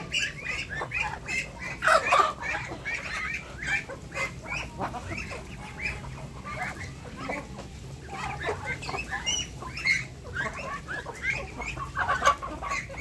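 Mixed poultry flock of chickens, Muscovy ducks and turkeys feeding, with many short overlapping clucks and calls and scattered sharp clicks.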